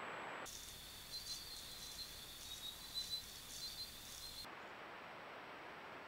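Insects trilling steadily at a high pitch, with a few short crackles of a squirrel moving through dry leaf litter. After about four seconds this gives way to a steady, even hiss of background noise.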